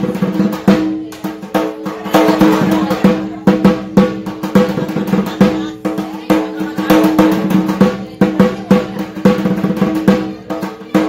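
Large barrel drum (dhak) beaten rapidly with sticks in a fast, continuous rhythm, the kind of drumming that accompanies a Hindu puja.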